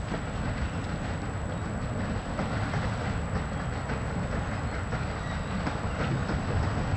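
Narrow-gauge steam train running slowly along the track: a steady rumble with scattered faint clicks from the wheels on the rails.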